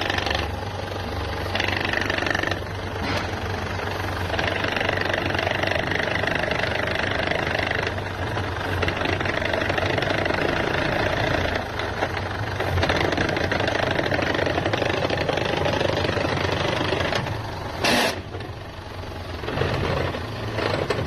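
Ford Ranger engine running with a steady knocking rattle from the gearbox, a noise caused by a faulty aftermarket clutch plate that goes away when the clutch pedal is pushed to the floor. There is one brief louder burst near the end.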